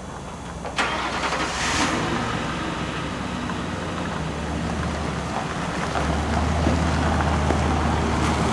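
A motor vehicle's engine starts with a sudden burst of noise about a second in, then runs steadily with a low hum that grows stronger in the second half.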